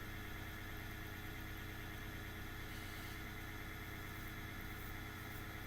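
Steady hum of a laptop's cooling fan, with a few level tones under a light whir, picked up on the narration microphone; the fan is faulty and noisy.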